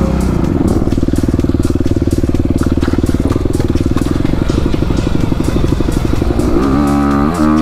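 Dirt bike engine running as the bike rides along a trail, held at fairly steady revs with a fast, even throb, then revs rising and falling repeatedly near the end.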